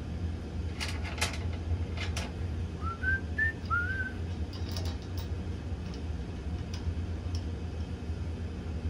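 Light metallic clicks and taps as a new V-belt pulley is seated on its tapered bushing on the blower shaft and its three bolts are started by hand, over a steady low machinery hum. About three seconds in come a few short, rising, whistle-like notes.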